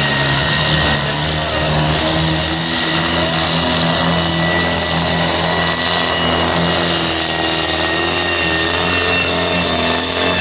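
Supersport-class pulling tractor's diesel engine running flat out under full load as it drags the weight sled, with a steady high whistle above the engine note. The pitch sags slightly near the end as the sled bogs it down.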